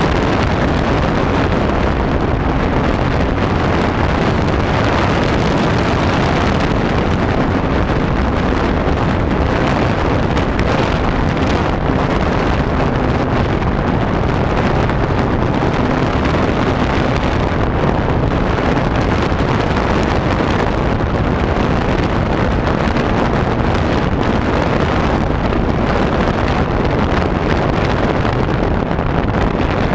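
Wind rushing over the onboard camera of a radio-controlled model plane in flight, loud and unbroken. Underneath, the plane's engine hums steadily and faintly, its tone fading in and out.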